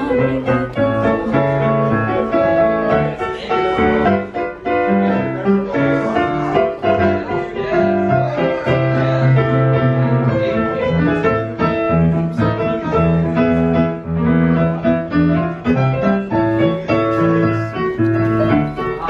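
Piano music: a continuous melody over held chords and a moving bass line.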